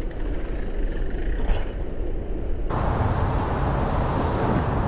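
Wind rushing over an action camera's microphone with rolling tyre and trail noise from a mountain bike being ridden: a steady, loud rumble that turns brighter about halfway through.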